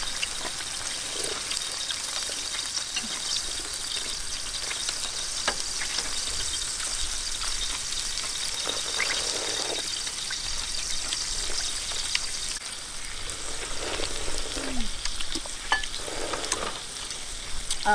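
Beef sizzling on a hot dome grill pan over a portable gas stove, a steady crackling hiss. Scattered light clicks of utensils and a few soft slurps of soup sound over it.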